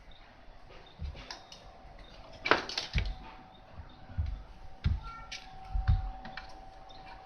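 Irregular clicks and light knocks of small hard objects being handled and set down, some with a dull thump, over a faint steady hum.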